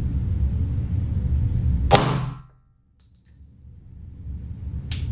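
Two shots from a Glock 20 pistol firing 10mm Auto Hornady Critical Duty 175-grain rounds, about three seconds apart. The first is the louder, and the low background hum cuts out for about a second after it.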